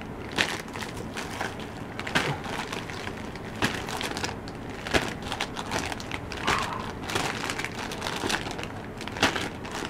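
Foil-and-plastic soft bait packets crinkling and rustling as they are shuffled and lifted by hand, with irregular sharp crackles every second or so.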